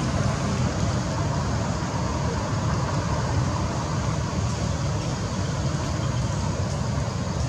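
Steady low rumbling background noise with a hiss on top, even throughout, with no distinct calls or knocks.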